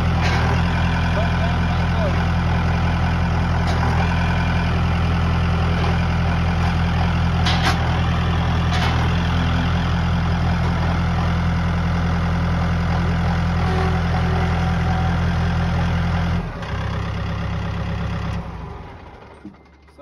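2022 Mahindra 1640 compact tractor's three-cylinder diesel engine running steadily, with a few light clicks. About sixteen seconds in the engine note drops, and the sound dies away soon after.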